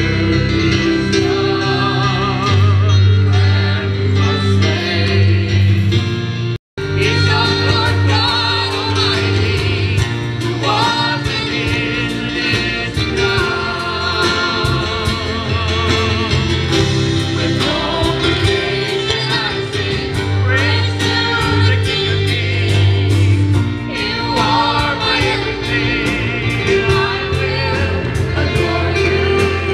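Worship band performing a gospel song: a woman and several men singing together over strummed acoustic guitars and a steady bass line. The sound drops out for an instant about seven seconds in.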